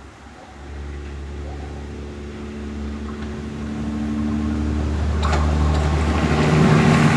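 Diesel engine of a VT 98 Uerdingen railbus pulling under load, its steady note coming in about half a second in and growing louder as the railcar gathers speed. About five seconds in, rising wheel and rail noise with clicks joins it.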